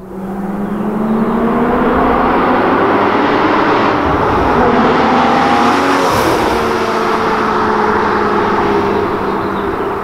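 A Porsche Cayman GT4's flat-six engine as the car approaches and passes by. Its note climbs steadily, drops in pitch as it goes past about six seconds in, then holds steady as it pulls away.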